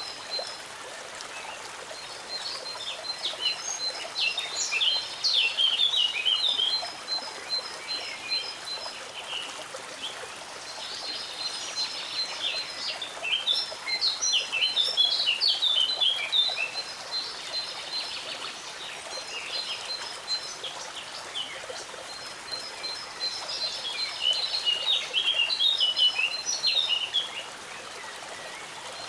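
A small songbird singing three long phrases about ten seconds apart, each a fast run of high repeated notes followed by a tangle of quick chirps, over the steady rush of a stream.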